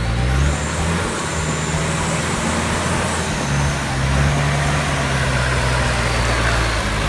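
Off-road vehicle's engine running steadily with a low hum that shifts a little in pitch, under a constant rushing noise.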